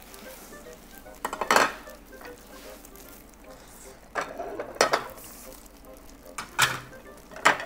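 Ceramic sushi plates clinking and clattering as they are picked up and stacked, in several separate knocks; the loudest is about one and a half seconds in, with more near the end. Close chewing noises run between them.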